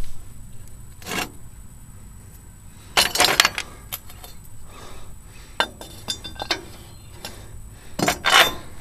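Sharp metallic clinks and rattles of loose head bolts and the finned cylinder head of a Briggs & Stratton twin engine being unbolted and lifted off by hand. There is one clink about a second in, a cluster around three seconds, a few scattered ones after that, and the loudest rattle near the end.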